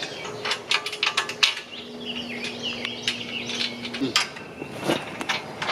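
Metal parts and hand tools clinking and knocking in a scattered series as a sawmill's frame and track rails are bolted together. A low steady hum runs for about two seconds in the middle and cuts off suddenly.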